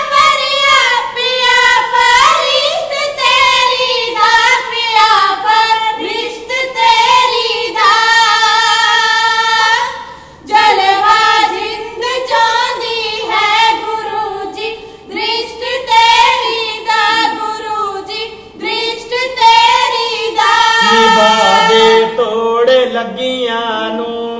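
Three women singing a Punjabi kavishri verse together without instruments, high voices with a wavering ornamented line and one short breath pause partway through. Near the end a lower man's voice joins in.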